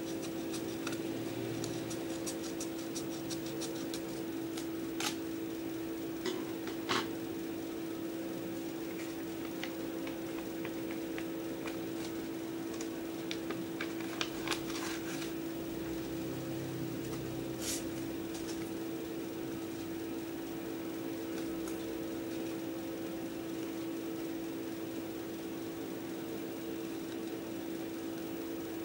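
Scissors snipping along the edge of a paper envelope, a quick run of small snips in the first few seconds, then paper rustling and a few sharp clicks as the envelope and cards are handled. A steady electric fan hum underneath.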